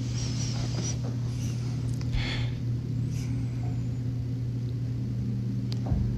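Steady low hum of background room noise, with a brief faint rustle about two seconds in.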